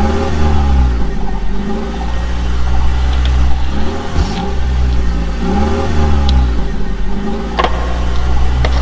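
Engine sound of toy construction vehicles running, with a steady low drone and a pitch that rises and falls every second or two like repeated revving. A couple of sharp clicks come near the end.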